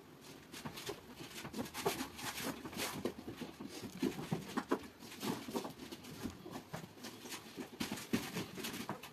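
Irregular knocks, taps and scuffs of painted wooden altar panels being handled and lifted into place.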